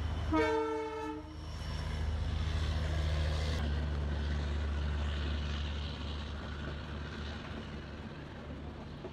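Diesel locomotive horn sounds one blast about a second long, followed by the steady deep rumble of the locomotive's diesel engine, which swells and then fades away near the end.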